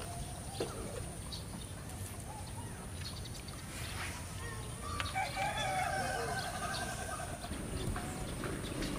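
A rooster crowing once, a long call starting about five seconds in, with a few short bird chirps before it over a low steady background.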